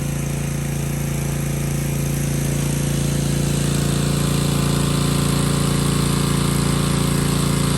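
Gas pressure washer's small engine running steadily at a constant speed.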